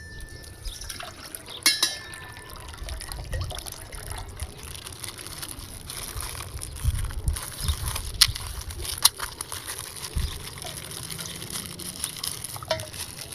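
Water sloshing and splashing as a colourful water bag is handled and opened, with rumbling handling noise and a few sharp clicks now and then.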